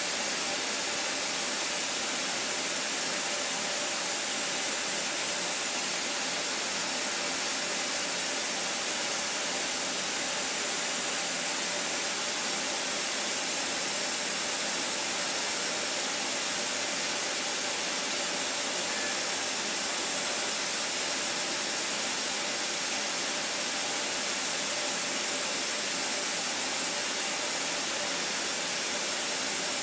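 CNC machining centre semi-roughing tough-pitch copper with a 3 mm carbide end mill turning at 5,300 rpm: a steady hiss with a faint hum underneath.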